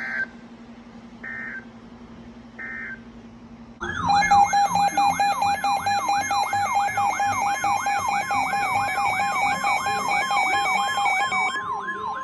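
Emergency Alert System signalling tones: three short electronic data bursts of the end-of-message code, about 1.3 s apart. About 4 s in, a loud siren-like alert tone starts, sweeping up and down about three times a second over steady high tones, and a steady single tone joins near the end as the sweeps fade.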